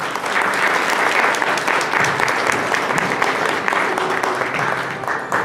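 Audience applauding: a dense round of clapping that swells quickly at the start, then holds steady and loud.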